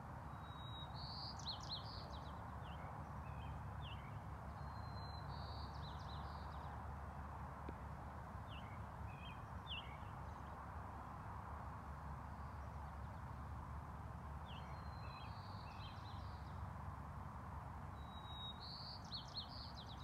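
A songbird singing short phrases every few seconds, each a brief steady whistle followed by a quick run of higher notes, with scattered single chirps in between, over steady background noise.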